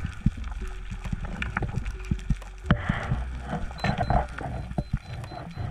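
Underwater sound picked up by a camera in a waterproof housing: a steady low rumble of moving water with scattered sharp clicks and knocks, and a hiss that comes in about halfway through.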